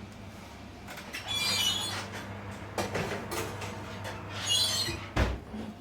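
Birds chirping in two short bursts, about a second and a half in and again near five seconds, over a steady low hum, with a dull thump just after the second burst.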